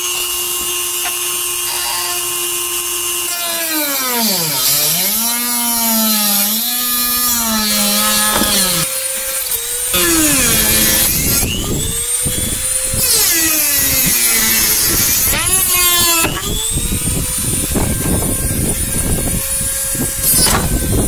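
Corded jigsaw cutting through a plastic inner fender flare, its motor pitch dropping and recovering again and again as the blade bites under load. It stops and spins back up a couple of times.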